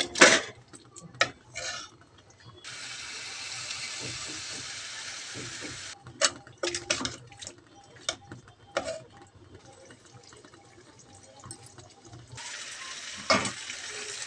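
A spoon scrapes and knocks against a pan of fish curry masala. Two stretches of steady rushing water hiss break in, about three seconds long near the start and again near the end, as water goes into the curry to make the gravy.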